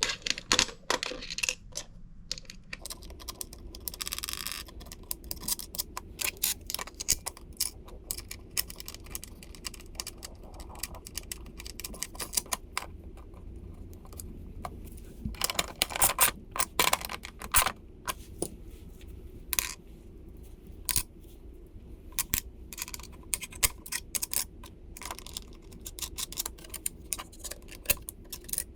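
Small metal hardware clicking and clinking as bolts, washers and nuts are fitted and tightened with a ratcheting socket wrench. There is a denser run of ratchet-like clicks about halfway through.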